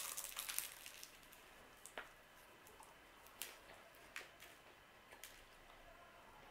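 Baked phyllo pastry crackling faintly as it is broken apart by hand and eaten, with soft chewing. A quick cluster of small crackles at the start, then single crackles about once a second.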